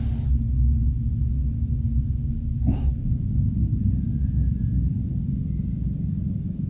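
A dog growling low and continuously, with a few short breaths in between.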